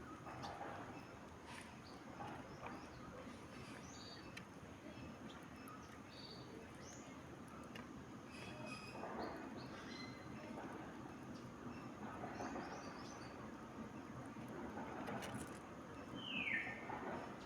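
Birds chirping: scattered short, high chirps over a faint outdoor hiss, with one louder call sweeping downward in pitch near the end.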